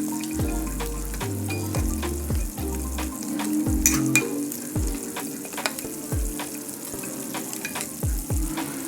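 Chop suey vegetables and chicken liver frying and sizzling in a pan as they are stirred, with many quick clicks of the spatula against the pan. Background music with a low thumping beat plays underneath.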